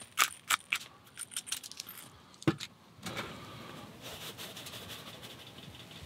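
Sharp clicks and clinks of cooking utensils being handled during food preparation: a quick run of them in the first second and one more about halfway through, over a faint steady hiss.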